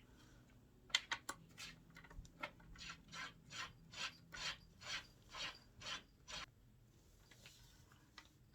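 A cat scratching its claws against a wall: a run of short scratching strokes, about two or three a second, starting about a second in and stopping about six and a half seconds in.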